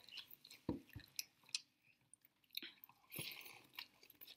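Faint chewing and slurping of spicy instant cup noodles, eaten with forks, with a few short soft clicks scattered through.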